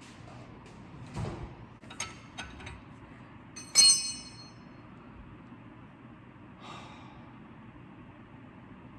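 Metal tools being handled: a few knocks and clinks, then one loud ringing metallic clank about four seconds in.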